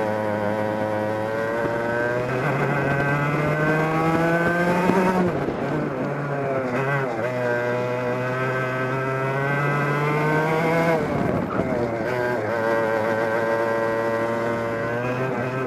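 Onboard sound of a 100cc two-stroke racing kart engine at full throttle, its pitch climbing steadily as the kart accelerates, then falling sharply as the driver lifts for a corner, about 5 s and 11 s in, before climbing again.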